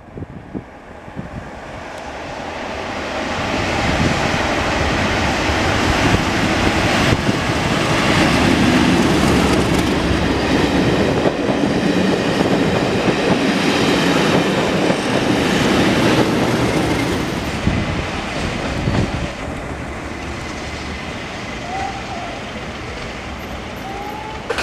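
Class 37 diesel locomotive hauling coaches approaching and passing close by. The sound builds over the first few seconds, stays loud for about twelve seconds as the train runs past, and drops to a quieter running about three-quarters of the way through.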